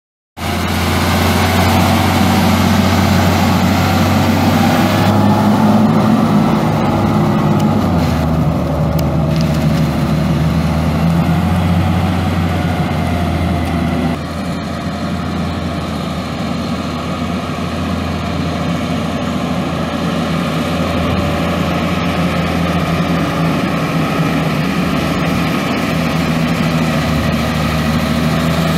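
Cummins M11 10.8-litre inline-six turbo diesel of a Terex TA30 articulated haul truck running steadily at low revs as the truck moves slowly. The engine note shifts slightly several seconds in, and the level dips a little about halfway through.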